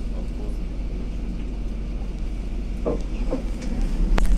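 Cabin noise inside a running MAZ-203 city bus: a steady low rumble, growing a little louder in the last second, with two sharp clicks close together near the end.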